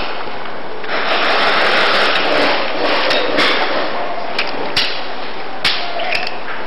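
A few sharp single paintball marker shots over a steady rushing noise. The shots come about four to six seconds in, the last two close together.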